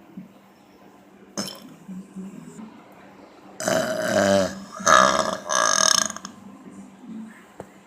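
A woman burping loudly: a short sharp sound about a second and a half in, then two long burps one after the other, starting about three and a half seconds in.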